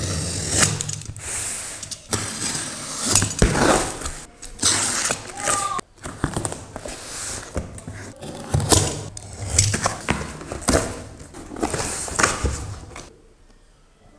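Parcel being unpacked: a box cutter slicing through packing tape and plastic wrap, then cardboard flaps pulled open and the inner box handled, in irregular scraping and tearing strokes. They stop about a second before the end.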